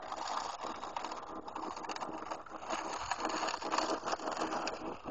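Garden-railway model diesel locomotives pushing a snow plow through snow on the track: a faint steady electric-motor hum under a continuous crackling and scraping of snow.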